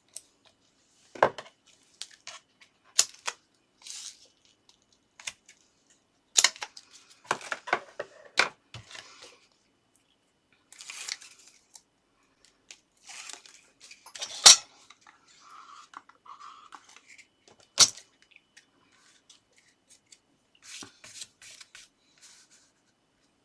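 Foam tape being torn and its backing peeled, with paper and card rustling and scattered sharp taps and clicks as pieces are handled and set down.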